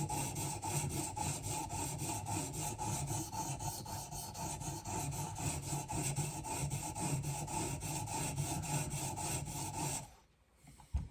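Sharpening stone of a TS Prof Cadet guided knife sharpener stroked back and forth along a knife edge, a steady scraping rub. It stops abruptly about ten seconds in.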